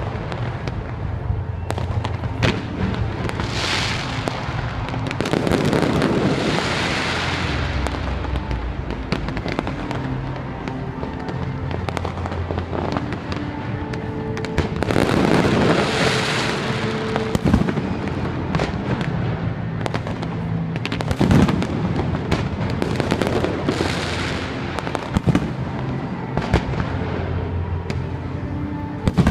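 Fireworks display: repeated sharp bangs of shells bursting, several long crackling, hissing swells a second or so long, and music playing underneath.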